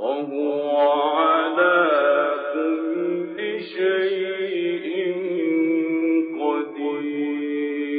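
Male Quran reciter's voice chanting in the ornate mujawwad style, holding long melodic notes with runs that slide up and down, and starting a new phrase about six seconds in. It begins suddenly after a near-silent pause, and the sound is thin and lacks high tones, as in an old recording.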